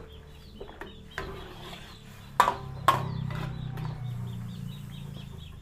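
Two sharp knocks of a cooking utensil against the pot, about two and a half and three seconds in, with a few lighter clicks before them and a low steady hum behind.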